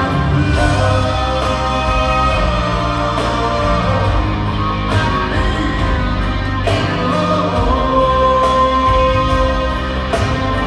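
Live rock band with grand piano and a singer's voice, heard from far back in a large arena, with drum hits falling on a slow steady beat.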